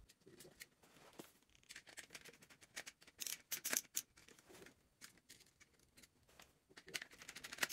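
Faint, scattered clicks and scrapes of small hand work: a screwdriver turning the terminal screws on a plastic thermostat power base while stranded wire leads are fitted under them. The clicks come thickest a few seconds in and again near the end.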